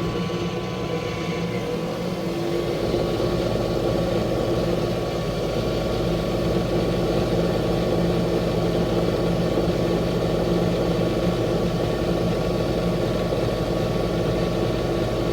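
WEN 4214T 12-inch cast-iron benchtop drill press running with a steady motor hum. About two to three seconds in, the sound rises and grows a little louder as the variable-speed lever is pushed up, then holds steady at the drill press's maximum speed.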